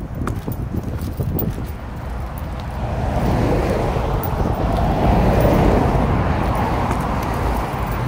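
A car passing by: its road noise swells from about three seconds in, is loudest around five to six seconds, then fades. A low rumble of wind on the microphone runs underneath.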